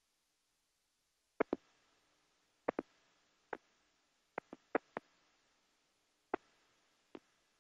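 About eleven sharp clicks at irregular intervals, several in quick pairs or runs, over an otherwise silent track, with a faint steady low hum through the middle.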